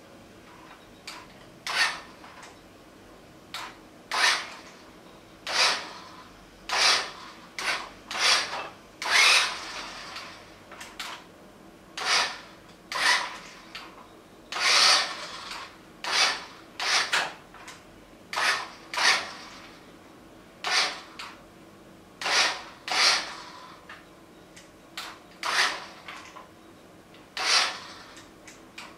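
A series of short, irregular scraping sounds, roughly one a second, over a faint steady hum.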